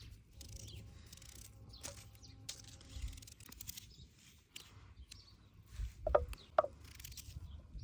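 A series of short scraping strokes, with two brief squeaks about six seconds in.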